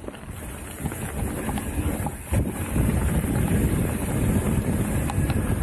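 Wind rushing over the microphone and the rolling rumble of a mountain bike descending a dirt and gravel trail, growing louder in the first two seconds or so as the bike picks up speed.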